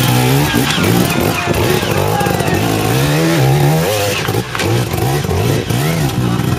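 Enduro motorcycle engine revving in repeated short throttle bursts, its pitch rising and falling over and over, while the bike works its way up a steep rocky climb under load.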